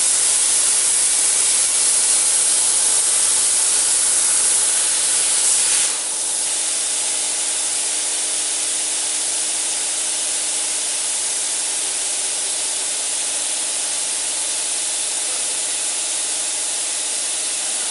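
Plasma torch of a portable CNC cutting machine cutting steel plate: a steady, loud hiss of the cutting arc with a faint underlying whine. It drops slightly in level about six seconds in.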